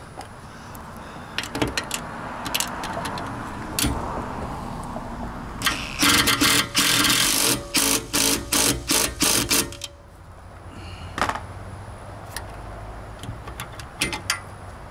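Cordless drill/driver driving a bolt into a roof ladder-rack bracket: one longer run, then a string of short trigger bursts as the bolt is snugged down. There are scattered metallic clicks of hardware being handled before and after.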